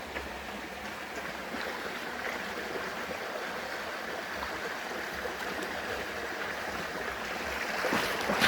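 A steady rushing noise outdoors, with a few crackles and knocks near the end.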